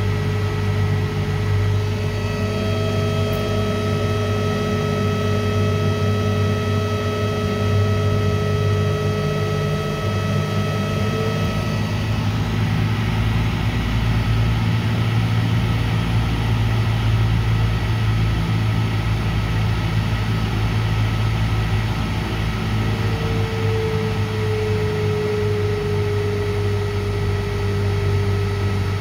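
Electric motor fed by a variable frequency drive running under load: a steady low hum with several thin whining tones, some of which shift slightly in pitch partway through. The motor is drawing rising current as the drive's output voltage sags, apparently an overload caused by low voltage from the VFD.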